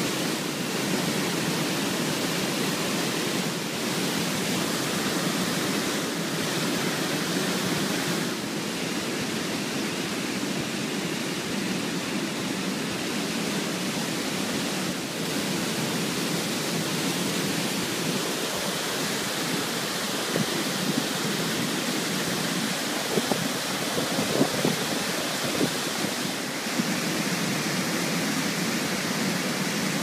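Water pouring over a wide man-made weir into a pool: a steady, even rush of falling water.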